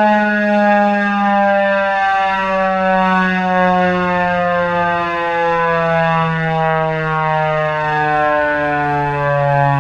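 Federal Signal 2001-130 electromechanical tornado siren winding down after being switched off, its loud tone falling slowly and steadily in pitch.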